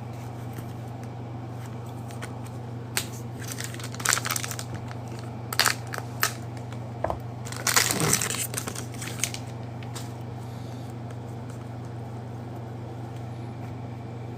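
Plastic wrapping of a trading card pack crinkling and tearing in several short, irregular bursts, over a steady low hum.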